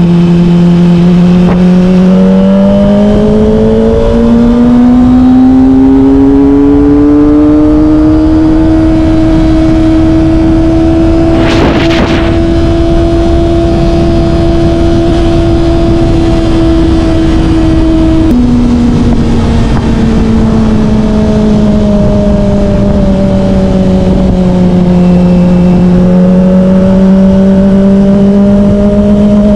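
Kawasaki Ninja ZX-25R's 250 cc inline-four with a Yoshimura R-11 exhaust, heard from the rider's seat under a steady wind rush: the engine note climbs as the bike accelerates, holds steady at cruising speed, then drops sharply about eighteen seconds in and sinks slowly as the bike slows. A brief rush of noise comes about twelve seconds in.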